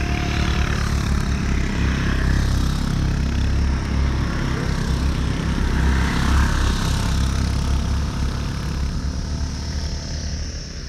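Motorcycle running on the move, its engine and wind rumble on the microphone, swelling twice as oncoming motorcycles go by.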